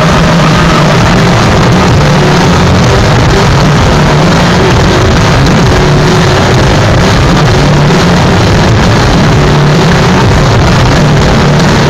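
Loud live band music recorded on a phone, so overloaded that it comes out as a steady distorted din with a heavy bass drone.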